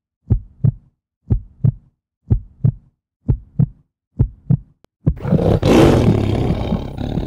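Heartbeat sound effect: five low double thumps, lub-dub, about one pair a second, then a loud roar breaks in about five seconds in and keeps going.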